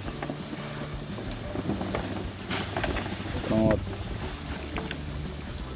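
Black plastic geomembrane liner rustling as it is pulled and spread out by hand, over a steady low hum. A short rush of noise about two and a half seconds in, and a brief voice about a second later.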